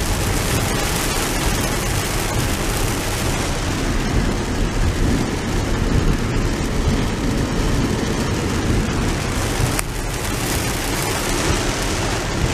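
Heavy rain drumming on a moving car, heard from inside the cabin, mixed with the hiss of tyres on the wet road. A single short knock about ten seconds in.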